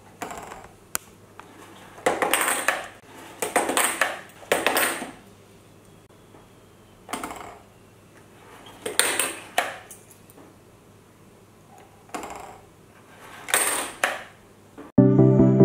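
Coins being swallowed by a homemade cardboard coin bank: the mechanism scrapes as it is worked, and each coin drops and clinks inside, in about eight short bursts. Music starts abruptly near the end.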